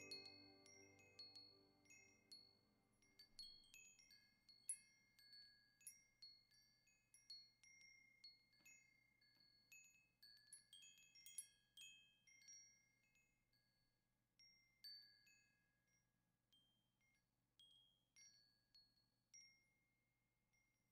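Faint, high, bell-like chime notes struck one at a time at an uneven pace, each ringing briefly and dying away, as the closing music fades out. Lower sustained tones die away in the first second, and the chimes grow quieter and sparser toward the end.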